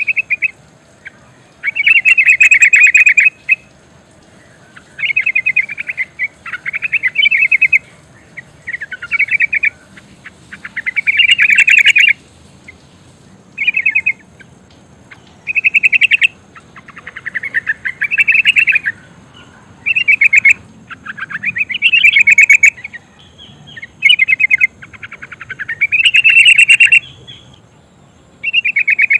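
Female yellow-vented bulbul (trucukan) giving loud, rapid chattering calls in bursts of one to two seconds, repeated about every two seconds. This is the female's call to a male, used as a lure to get males singing.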